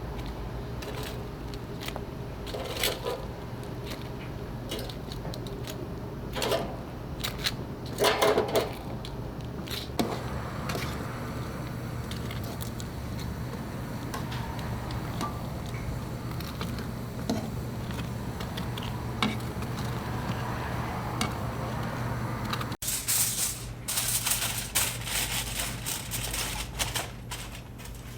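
Shop kitchen work noise: scattered clicks, knocks and scraping over a steady hum. The loudest knocks come about eight seconds in, and near the end there is a stretch of hiss full of small crackles.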